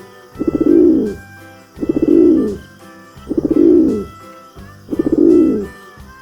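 Pigeon cooing, one coo about every second and a half, four times. Each coo opens with a quick stutter and swells into a low rolling note.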